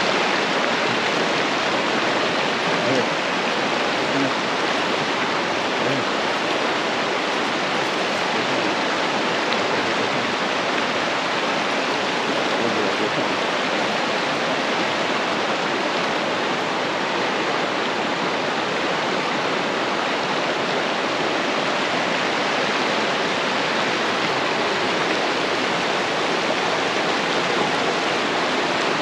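Shallow mountain creek rushing over rocks and riffles, a steady, even rush of water.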